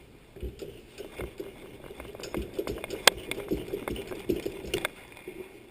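Oil filter wrench gripping and twisting the protective end cap off a refrigerator condenser fan motor clamped in a vise: irregular scraping and creaking, with a sharp click about three seconds in and another near the end.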